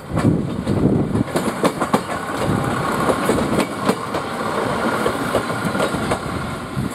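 Tsugaru Railway Tsugaru-21 diesel railcar passing close by, its wheels clicking over the rail joints over a steady rumble.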